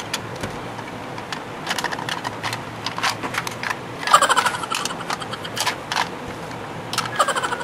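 Plastic clicking and rattling as a clear plastic toy drum magazine holding loose balls is handled and turned over, with two brief squeaky sounds about four seconds in and near the end.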